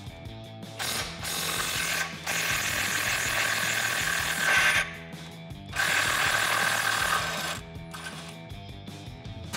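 Cordless power wrench driving an 18 mm socket on a long extension, spinning the bumper-mount nuts off the frame-rail studs: one run from about a second in to nearly five seconds, then a shorter second run.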